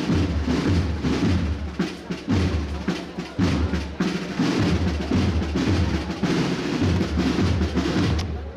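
Procession band drums playing a march: regular bass drum beats with snare drum strokes and rolls.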